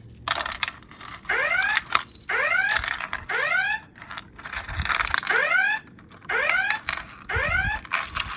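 Wheelock E60 fire alarm speaker sounding the alert tone of a Potter Evax voice evacuation system between spoken messages. It is a series of rising whoop sweeps, each about half a second long, in groups separated by short pauses.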